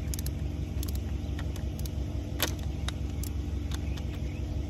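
Screwdriver turning a worm-drive hose clamp on an outboard's fuel line, giving sparse small clicks, one louder about halfway through, over a steady low rumble.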